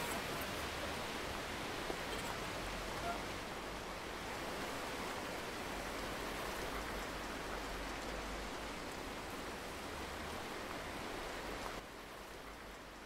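Steady rushing noise, like wind through foliage or rain, which drops sharply to a lower level near the end.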